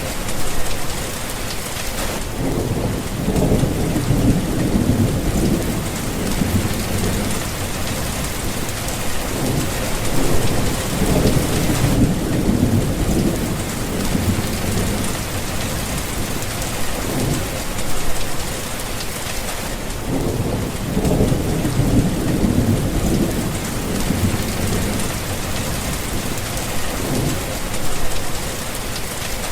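Steady heavy rain, with rolling thunder rumbling low several times through it.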